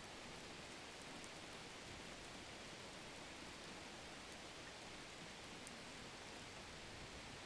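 Steady faint hiss with no distinct events.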